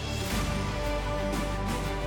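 Background music with sustained tones and a bass line.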